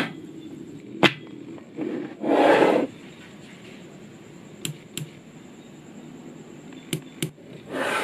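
Small magnetic balls clicking as a bar of them is snapped onto a model: one sharp click about a second in, then two close pairs of clicks later on. A brushing swish, the loudest sound, comes just before the middle, and another starts near the end.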